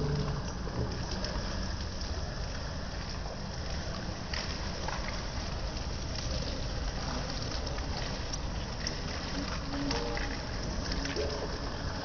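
Rain falling onto a water-covered concrete floor: a steady hiss of patter with scattered small drop ticks, and rainwater running across the surface.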